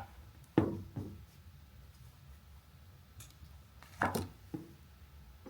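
Cutters snipping coax cable: two pairs of sharp clicks, the first about half a second in and the second about four seconds in.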